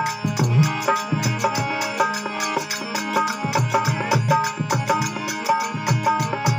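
Harmonium playing a folk bhajan melody over quick, steady dholak drumming: an instrumental passage with no singing.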